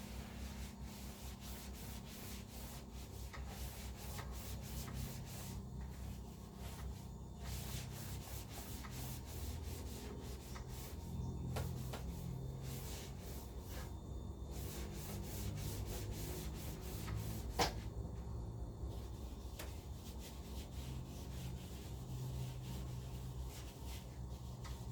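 Repeated hand scrubbing strokes in an uneven rhythm, over a steady low hum, with one sharp click about two-thirds of the way through.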